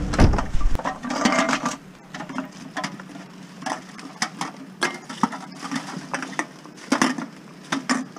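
Empty glass bottles and aluminium cans clinking and clattering as they are picked up, set down on pavement and dropped into a plastic garbage bag: an irregular run of sharp knocks, with a low thump at the very start.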